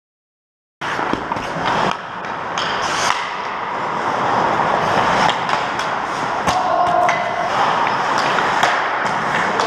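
Ice hockey play close to the goal: skate blades scraping the ice and sharp clacks of sticks and puck. The sound starts about a second in.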